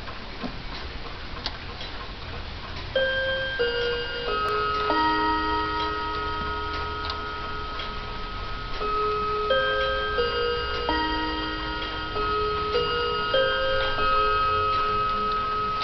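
Seth Thomas Legacy III mantel clock ticking steadily and ringing its chime melody, with clear ringing notes in groups of four. The chime is set off by turning the minute hand round to the quarter positions.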